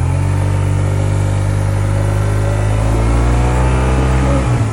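Yamaha TMAX 560 maxi-scooter's parallel-twin engine running steadily. Its pitch creeps up a little past halfway, then it falls off sharply near the end. The engine is being recorded to show an abnormal noise.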